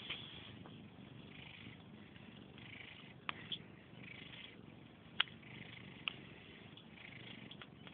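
Sleeping cats purring steadily, with a few sharp clicks about three, five and six seconds in.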